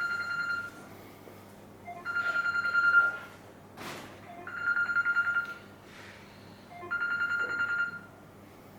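Electronic telephone ring: a trilling tone repeating about every two and a half seconds, four rings in all, with a single short click between the second and third ring.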